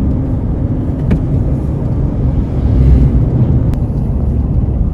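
Steady low rumble of a car's engine and tyres heard from inside the moving vehicle, swelling briefly about three seconds in, with a couple of faint clicks.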